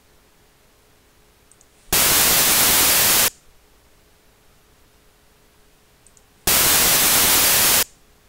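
MLS (maximum length sequence) test signal from the SoundEasy measurement software: two loud bursts of white-noise hiss, each about a second and a half long, starting about two seconds in and again about six and a half seconds in. Each burst is a repeat of a frequency-response measurement run while the level is being set. A faint double mouse click comes just before each burst.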